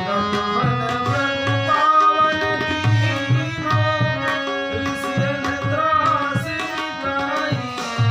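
Bhajan music: tabla playing a steady rhythm under sustained held notes from a melody instrument.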